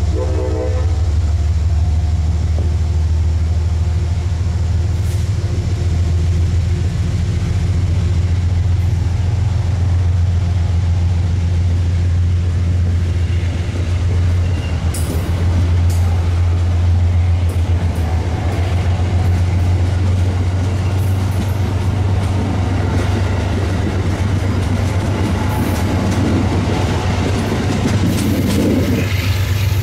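Amtrak passenger trains at a station platform: a steady low rumble from the locomotives. From about halfway through, the passenger cars roll out past the platform with wheels clicking over rail joints, louder near the end.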